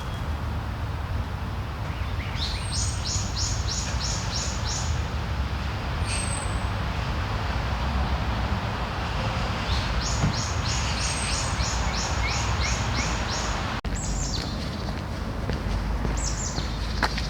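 Songbirds singing over a steady low background hum: one bird twice gives a run of quick, evenly repeated high notes, each run lasting about three seconds, with a few short, high, falling whistles between.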